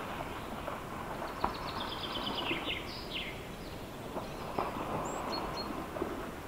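Moose splashing through lake shallows: a steady wash of splashing water with scattered thuds. A bird sings a descending run of notes from about a second in, and gives a few short chirps near the end.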